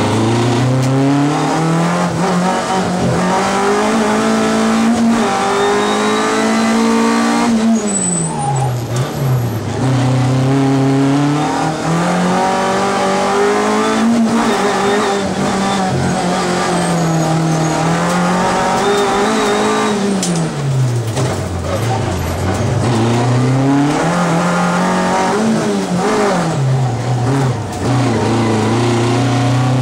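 Opel Corsa rally car engine heard from inside the cabin, revving up hard and falling away again and again as the car accelerates out of corners and slows into them, with deep drops in pitch several times.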